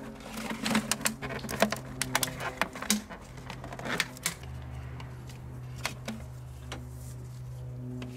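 Thin plastic water bottles clicking and crinkling as they are handled and set in place with rubber return hoses pushed into them, a quick run of sharp clicks in the first four seconds or so, then only scattered clicks over a steady low hum.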